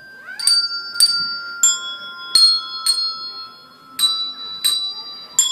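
Colour-coded handbells rung one at a time, about eight strikes at uneven intervals. Each is a different note, and each rings on into the next.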